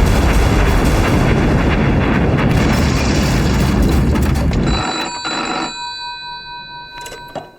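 A big explosion of an ammunition depot blowing up, a loud dense rumble that dies away about five seconds in. A telephone then rings until near the end.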